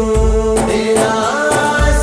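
Naat recording: steady drone tones held for about half a second. Then a singing voice starts a wavering melodic line about a second in, over deep, regularly spaced bass beats.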